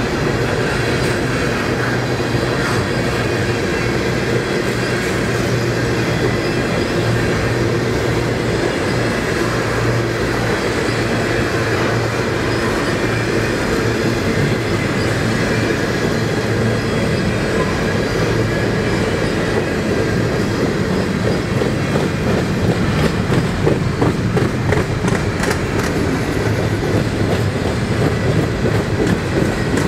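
Canadian Pacific freight train rolling past, a steady rumble of the cars with their wheels clacking over the rail joints; the clacking grows sharper in the last third.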